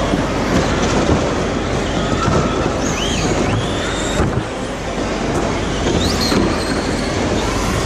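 Radio-controlled cars towing model caravans racing on a carpet track: a steady rolling rumble with motor whines that rise and fall in pitch, one climbing steeply about six seconds in.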